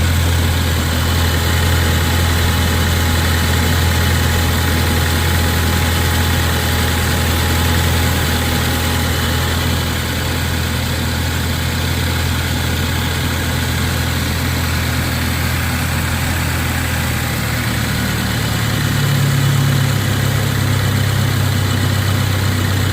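Ford Focus ST's 2.0 EcoBoost turbocharged four-cylinder engine idling steadily with its freshly replaced accessory and AC belts. Its tone shifts slightly and grows a little louder near the end.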